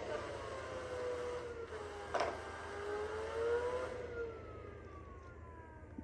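SereneLife Pure Clean robot vacuum running, its motor whine slowly rising and falling in pitch as it is driven by remote control, with a single sharp click about two seconds in. The higher hiss thins out after about four seconds.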